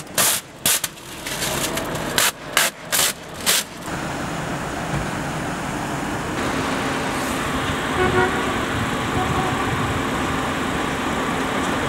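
Steady noise of cars and road traffic, broken in the first four seconds by about half a dozen short, sharp noises.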